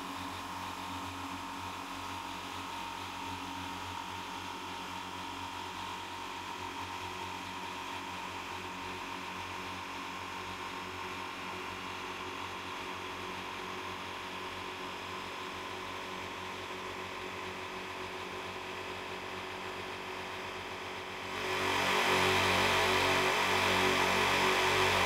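STAHLWERK ST 1510 Pro oil-free air compressor running steadily as it fills its 150-litre tank: an even hum with a few fixed tones. About 21 seconds in, louder guitar music comes in over it.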